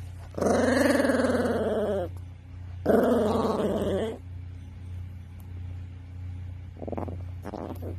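A small Yorkie mix dog growling in protest at being woken: two long, loud growls in the first half, then two brief, fainter grumbles near the end.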